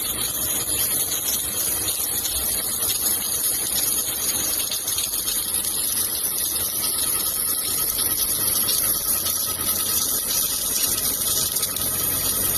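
Automatic submerged arc welding machine at work: a steady, even hiss with no breaks.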